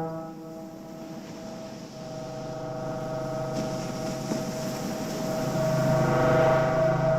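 Battery-powered synthesizer holding a sustained drone chord. It drops away sharply at the start, then swells back slowly and steadily.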